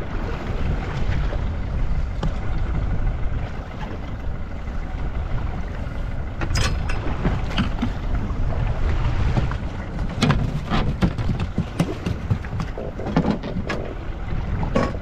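Steady wind and water rumble on a small fishing boat. From about six seconds in come irregular knocks and splashes as a croaker is scooped up in a landing net and lifted aboard.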